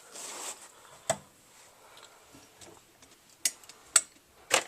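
Handling and movement noises: a brief rustle, then a few sharp clicks and knocks spaced about a second apart.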